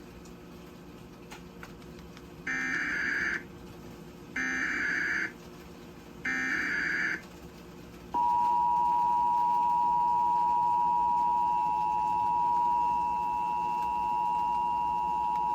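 Emergency Alert System tones announcing a tornado warning on cable TV. There are three short screeching SAME data bursts about two seconds apart, then, about eight seconds in, the steady two-tone attention signal begins.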